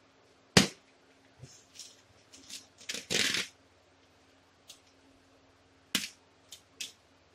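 Plastic wrapping on a whole raw turkey being cut and pulled open: crinkling rustles with a longer tearing crinkle about three seconds in, and a few sharp knocks, the loudest about half a second in and another near six seconds.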